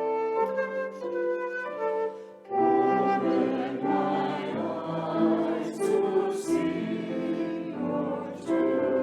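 Choral music: held notes from a choir with instruments, the sound thickening into a fuller section about two and a half seconds in.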